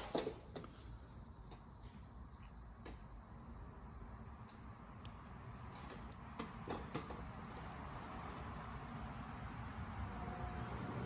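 A few small, sharp plastic clicks from motorcycle wiring connectors being worked on by hand, over a steady high-pitched chirring of crickets. A low rumble, like a passing aircraft, swells near the end.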